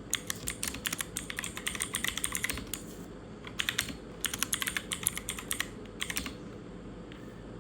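Fast typing on a clicky mechanical keyboard: two runs of rapid key clicks with a short pause between, then the typing stops about six seconds in.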